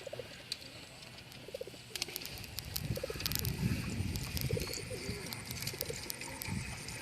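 Racing pigeons cooing, short low coos repeating about every second or two, with scattered sharp clicks, most of them between two and four seconds in.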